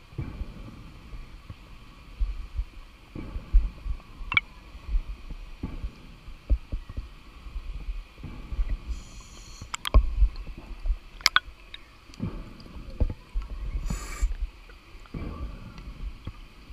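Underwater sound on a scuba dive: a constant low rumble of water moving against the camera housing, broken by scattered sharp clicks and knocks. Twice, about halfway through and again near the end, comes a short hissing burst, typical of a diver's regulator breathing and exhaust bubbles.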